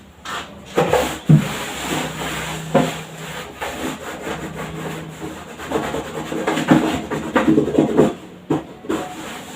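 Cloth wiping and rubbing a hard surface in irregular strokes.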